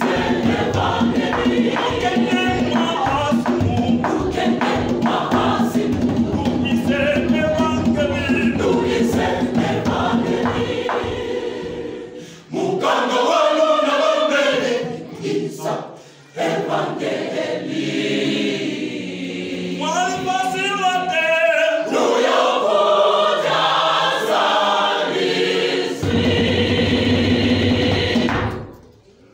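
Mixed church choir singing a gospel song in parts, backed by a pair of traditional hand drums. The drums drop out a little before halfway, leaving the voices alone, and come back near the end before the song stops.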